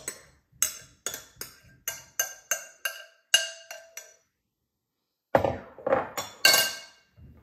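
A metal spoon tapping and scraping against a glass mixing bowl, about three ringing clinks a second, knocking whipped egg whites out of the bowl. After a short pause, a few louder knocks and clatters of glass near the end.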